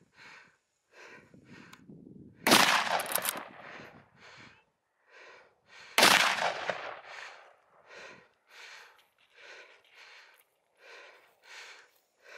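Two shotgun shots about three and a half seconds apart, each a sharp blast with a trailing echo; the shooter says afterwards that he shot a little high. A steady rhythm of short breathy puffs, about two a second, runs between and after the shots.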